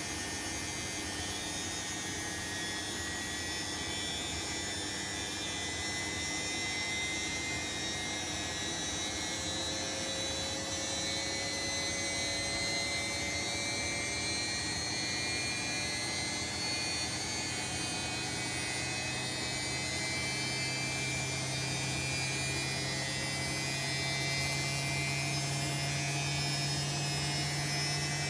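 Bosch WAE24162GB washing machine running with a steady motor hum and whine that rise slowly in pitch, the drum speeding up, typical of the spin phase of the cycle.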